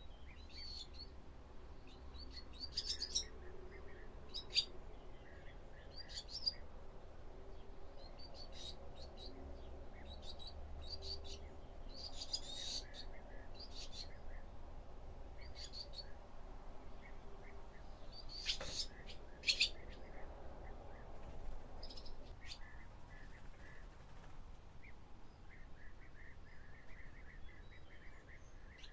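Barn swallows calling: scattered short, sharp chirps, then a run of softer, quicker twittering near the end.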